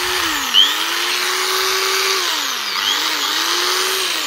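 Mosay 230-watt corded electric drill running with no load, a steady motor whine that sags in pitch and spins back up several times as the trigger is eased and squeezed. It runs properly: the drill is in working order.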